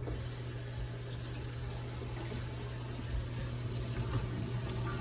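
Water starts running from a tap with a sudden, steady hiss as the supply is turned back on after a plumbing repair to test for leaks.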